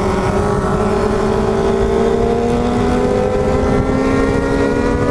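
Yamaha XJ6 motorcycle's inline-four engine under way, its pitch rising slowly and evenly as the bike gathers speed, over heavy wind rumble on the microphone.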